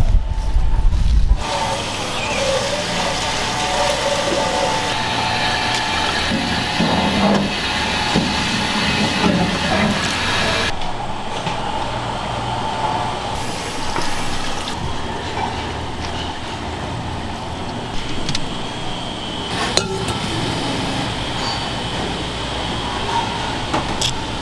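Food-stall kitchen sounds: a steady rushing noise like running water, with a few sharp clinks of stainless-steel bowls, the clearest near the end.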